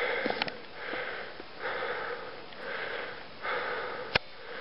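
A hiker breathing hard, with quick rasping breaths about one a second, from the effort of climbing at about 10,000 feet. A sharp click about four seconds in.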